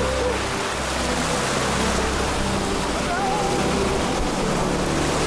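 Surf washing and breaking in shallow water, a steady rush of waves, with short calls from men's voices near the start and about three seconds in.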